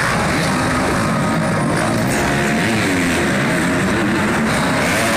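Motocross dirt bike engines revving, their pitch rising and falling again and again as the riders work the throttle.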